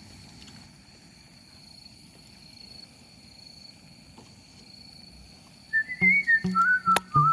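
Faint outdoor ambience with a thin steady high tone, then about six seconds in, background music starts: a whistled melody over a regular beat.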